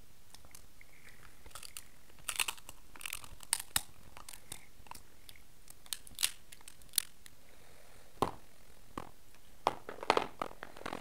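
Cooked king crab shell being cracked and picked apart by hand: irregular sharp crackles and clicks, thickest a couple of seconds in and again near the end, with chewing.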